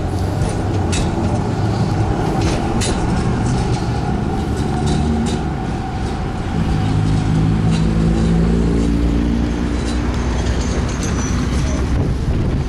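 Premetro light-rail car running slowly along the street track toward the crossing, over steady traffic rumble. A few sharp clicks come in the first few seconds, and a motor whine rises and then falls about halfway through.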